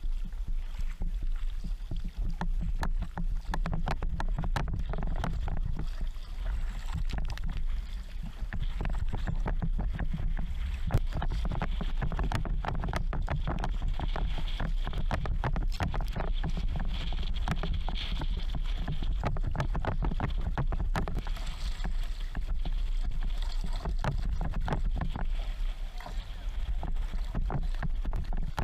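Sea kayak under way: wind buffeting the camera microphone over the steady rush and splash of water along the hull.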